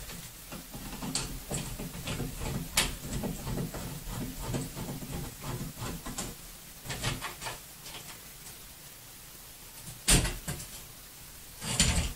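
Small metal clicks and scrapes of a screwdriver working at a towel bar's wall bracket, then two louder knocks about two seconds apart near the end as the bar is swung down from the bracket.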